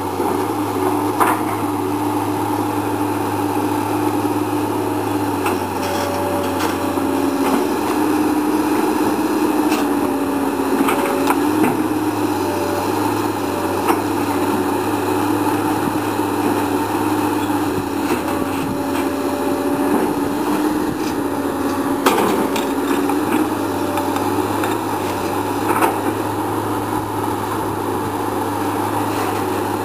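Komatsu PC220 hydraulic excavator running steadily under work, a constant engine hum with a hydraulic whine that wavers slightly in pitch as the arm moves. Occasional sharp knocks and cracks come from the bucket working through brush.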